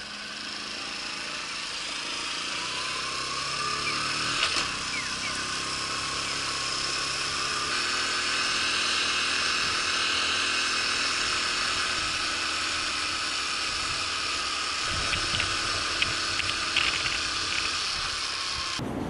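Honda Super Cub's small single-cylinder four-stroke engine pulling away, its pitch rising about two to four seconds in, then running steadily at road speed in city traffic.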